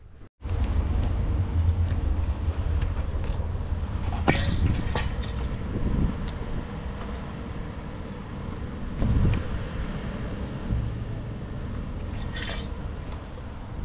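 Outdoor street ambience: a steady low rumble with two brief scratchy rustles, about four seconds in and near the end.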